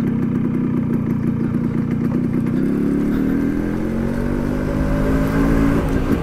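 Yamaha RX100's two-stroke single-cylinder engine running as the motorcycle is ridden, pulsing evenly at first, then rising steadily in pitch from about halfway through as it accelerates.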